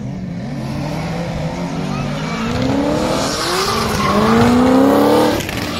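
Drift car engine revving hard, its pitch climbing in several surges and loudest near the end, with tyres squealing and hissing as it slides.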